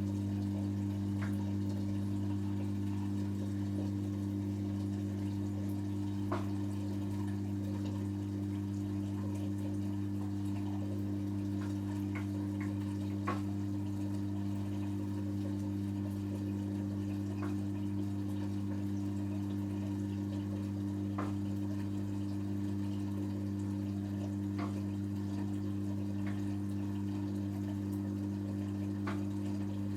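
Hotpoint Extra WMXTF742K washing machine running with a steady, unchanging hum and water trickling inside, with a few faint drips or clicks.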